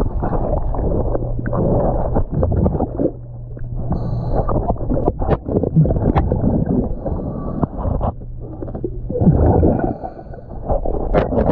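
A scuba diver's regulator breathing, heard underwater: gurgling, rumbling exhaust bubbles alternating with stretches of low steady hum, with a few sharp clicks.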